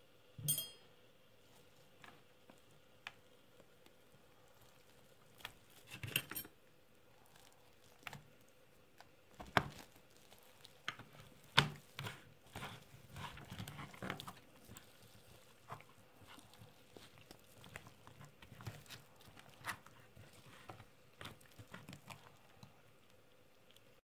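A fork scraping and tapping on a plastic serving tray while hands tear into a roasted stuffed rib roast and dig out its rice filling: faint, scattered clicks, taps and small tearing sounds, busiest in the middle stretch.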